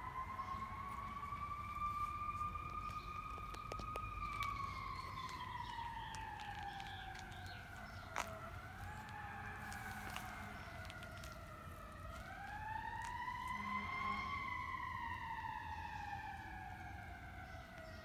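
Siren wailing, its pitch gliding slowly up and down: it rises over about four seconds, falls, makes a short rise and fall, then climbs again about twelve seconds in before gliding down. A single sharp click about eight seconds in.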